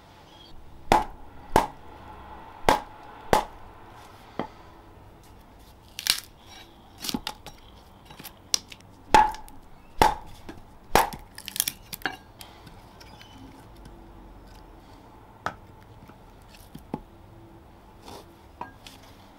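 Wooden club striking the back of a steel froe to split a green plum log into billets: a series of sharp wooden knocks with a slight ring, about a dozen in the first twelve seconds, with some crackling of the wood splitting around the middle and a few lighter taps near the end.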